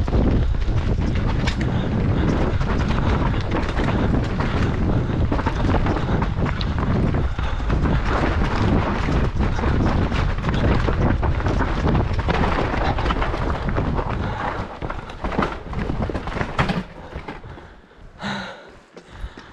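Mountain bike riding fast down a rough, rocky trail. Wind buffets the microphone over a constant clatter of sharp knocks from the tyres and bike on rock. It grows much quieter in the last few seconds.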